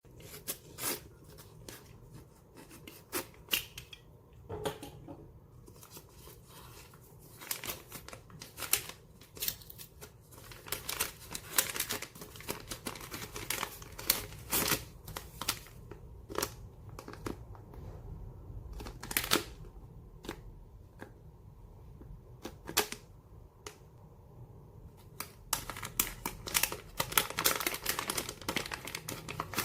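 Handling noise of stainless steel tweezers and their packaging: irregular sharp clicks and taps with crinkling and rustling between them, busier near the end.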